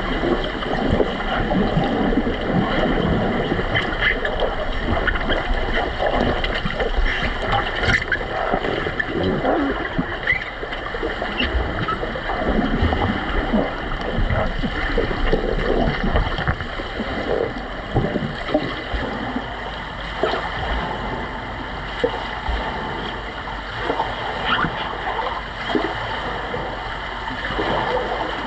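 Busy underwater noise during an underwater rugby game: a steady churn of bubbles and water stirred by finning players, with many short knocks and clicks scattered through it.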